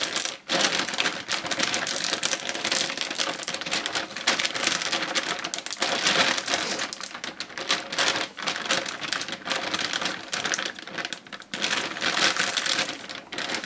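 Plastic vacuum storage bag being handled and its double press-seal zipper pressed shut: a dense, irregular run of crinkles and clicks.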